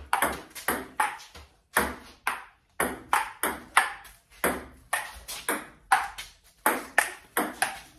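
Table tennis rally: the ball clicking sharply off the paddles and bouncing on a JOOLA table, about two or three clicks a second with a couple of brief gaps.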